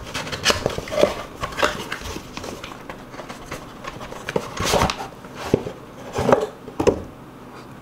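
A cardboard shipping box and its paperwork being handled and opened: scattered rustles with a handful of short knocks and clicks.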